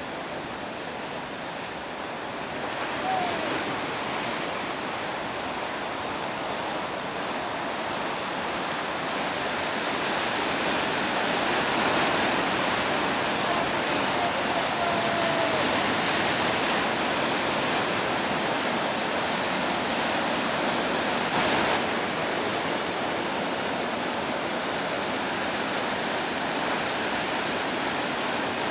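Ocean surf: waves breaking and washing in as a steady rushing noise that grows louder through the middle.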